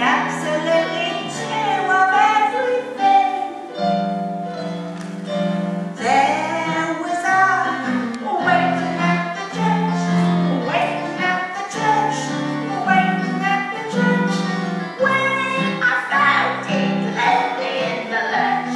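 A woman singing an Edwardian music hall song over instrumental accompaniment that holds low chords for a second or two at a time.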